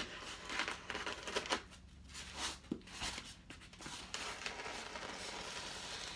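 Scissors cutting through paper packaging with crinkling of the wrapping: a few sharp snips, then a steadier rustle of cutting in the last couple of seconds.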